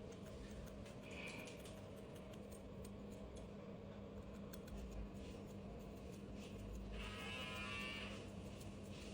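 Electric hair clipper humming faintly and steadily during a fade cut, with a brief higher buzz near the end.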